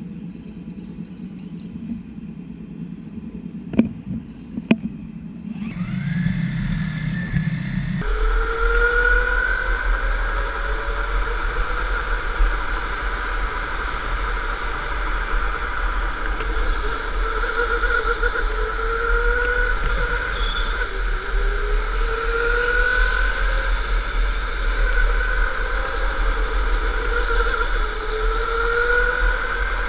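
Electric indoor go-kart's motor whining as it laps, its pitch rising as the kart accelerates out of each corner and dropping back every few seconds, over a steady rumble of tyres on the track. The first several seconds are quieter, with two sharp knocks about four seconds in.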